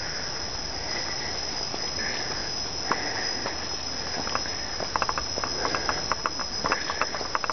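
Insects calling in a continuous, steady high-pitched whine. About three seconds in, a run of short sharp clicks starts and grows more frequent toward the end.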